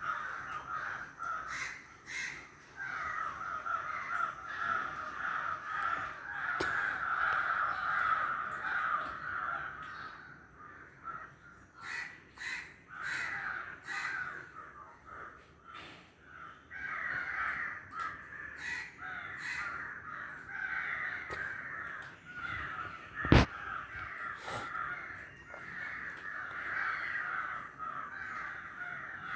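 Crows cawing over and over in harsh, overlapping calls, easing off for a few seconds near the middle. One sharp knock stands out about two-thirds of the way through.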